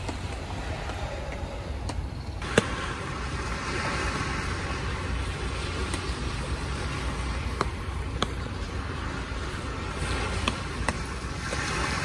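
Steady rain ambience with scattered sharp drips tapping, over a low wind rumble.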